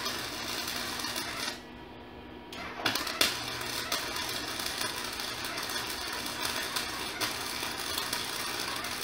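Electric arc welding: a steady crackling sizzle from the welding arc. It stops for about a second shortly after the start, then strikes again with a sharp crack.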